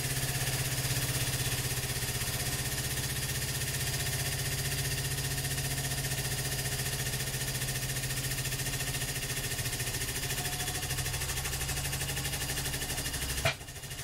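Hydraulic press running steadily with a low hum and rapid pulsing as the ram bears down on a 35 mm brass padlock. Near the end a sharp crack as the padlock gives way, and the running sound drops off.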